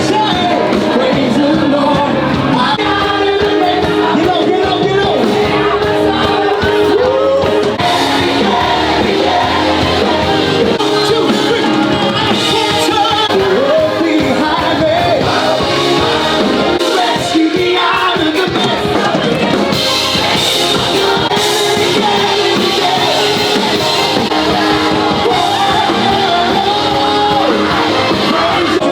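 Loud live band music with singing, a crowd joining in with occasional shouts.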